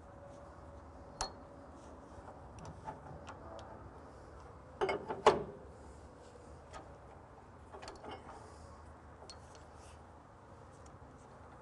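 Scattered metal clicks and knocks from a wood lathe's tool-rest base (banjo) being shifted and locked on the lathe bed, with a louder cluster of clunks about five seconds in.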